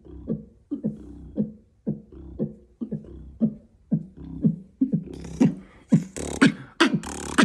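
Vocal beatboxing that imitates club music heard from outside: a muffled, bass-heavy kick beat about twice a second. About five seconds in it opens up with bright, crisp hi-hat and snare sounds, as if stepping into the club.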